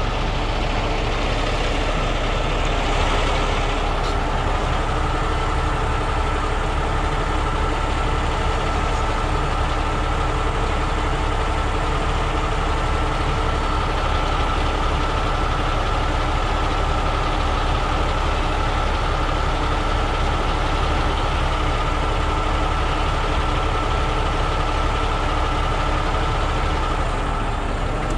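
Diesel engine of a 50-ton Miller Industries Vulcan 950 rotator tow truck idling steadily, with a constant high whine over the low rumble.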